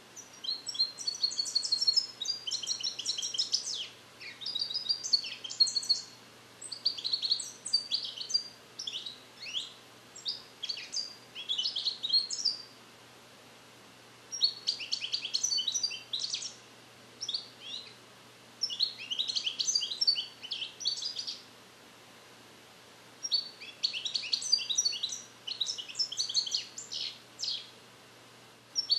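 Caged European goldfinch singing phrases of rapid twittering and trills, with two short pauses, about thirteen and twenty-two seconds in. The bird has been trained on Neapolitan song passages (passata napoletana) and is starting to repeat them, though the song is not yet complete.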